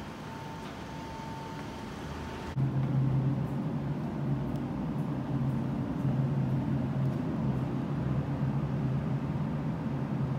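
Steady background noise, with an abrupt jump to a louder, steady low hum about two and a half seconds in: the ambient drone of a long underground pedestrian tunnel. The hum carries on with a couple of brief dips.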